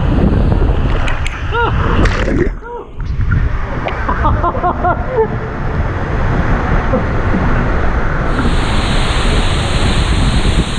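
Water rushing and sloshing around a raft as it slides down a water slide, heard from a camera riding on the raft. A few short squeaky chirps sound in the first half, and the rushing grows brighter and hissier about eight seconds in.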